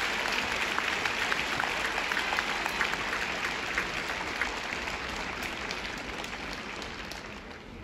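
Audience applauding, a dense patter of clapping that gradually dies down.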